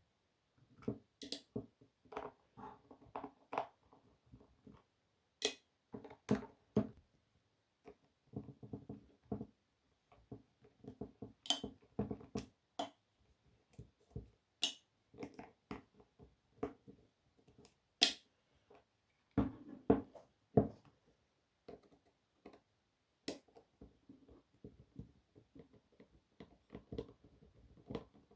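Irregular clicks, taps and knocks of hard plastic and small metal parts being handled by hand, as a Makita BTD140 cordless impact driver is worked on during a rotor change. A handful of sharper, louder clicks stand out among duller knocks.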